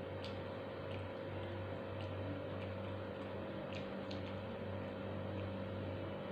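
Soft, scattered clicks and smacks of eating by hand, fingers picking fish off a plate and chewing, over a steady low hum.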